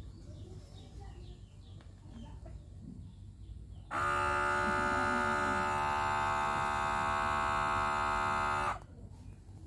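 Miyako rechargeable electric gallon water pump's small motor switched on by its top button about four seconds in, running dry with a steady whine for about five seconds, then cut off abruptly.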